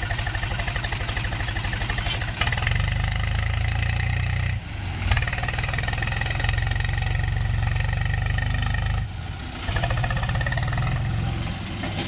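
Swaraj 735 FE tractor's diesel engine running hard under load, trying to pull a loaded trailer out of soft sand. The revs drop briefly about four and a half seconds in and again about nine seconds in, then pick up again.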